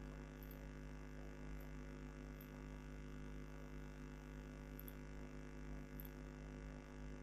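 Steady low mains hum with a faint background hiss, unchanging throughout.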